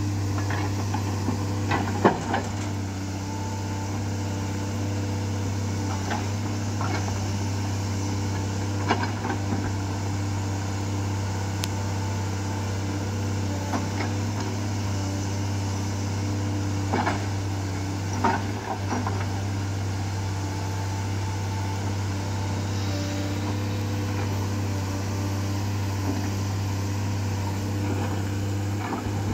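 JCB 210 tracked excavator's diesel engine running steadily under work, with a hydraulic whine that rises and fades as it moves, and scattered clanks and knocks, the loudest about two seconds in.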